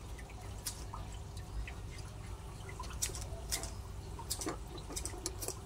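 Scattered light metallic clicks and taps at an uneven pace as a wrench works the lower mounting bolt of a car's rear shock absorber, over a low steady hum.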